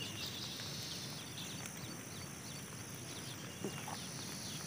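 Open-field ambience: a steady high-pitched insect drone with many faint, short bird chirps, and one small knock about three and a half seconds in.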